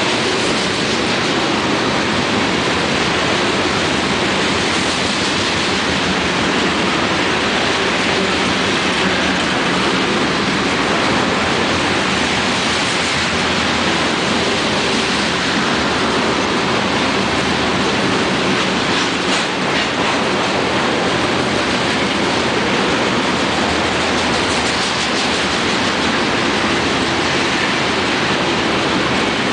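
Freight train tank cars rolling past close by: a steady, loud noise of steel wheels running on the rails.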